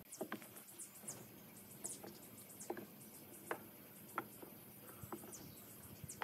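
Light wooden taps and clicks as short wooden strips are set by hand into a glued lattice panel, roughly one tap every second, with faint high ticking in between.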